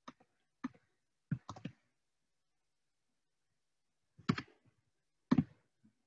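Computer keyboard and mouse clicks: scattered single clicks, a quick run of three about a second and a half in, and two louder clicks near the end, as a number is typed into a web form and the form is submitted.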